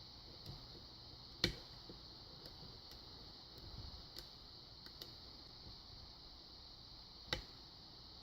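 Faint metallic ticks and clicks of a pick and tension wrench working the pins of a Kwikset pin-tumbler lock, with two sharper clicks, about a second and a half in and near the end.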